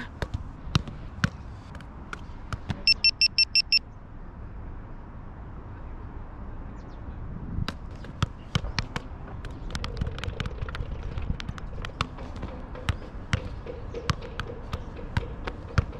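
Football being juggled with the feet: a run of sharp taps of the ball on foot, about two a second, over steady wind rumble on the microphone. About three seconds in comes a quick run of about eight short, high electronic beeps.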